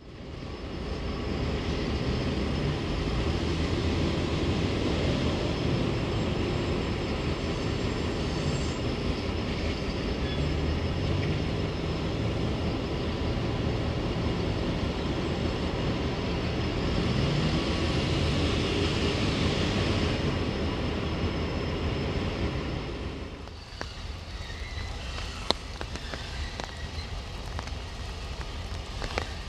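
Diesel locomotives of a loaded coal train working, a loud steady engine drone with deep rumble. About 23 seconds in the engine sound drops away, leaving a quieter rumble with a few sharp clicks.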